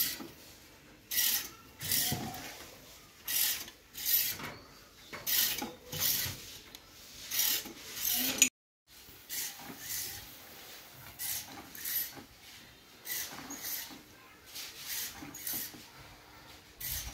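Hand-worked lever pressure pump of a pesticide sprayer being pumped steadily, each up and down stroke of the plunger giving a short rasping rub, about one stroke a second. There is a brief gap partway through, and the strokes are quieter after it.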